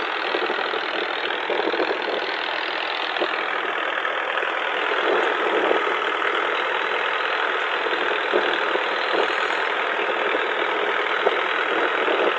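Fishing boat's engine running steadily while the boat is under way.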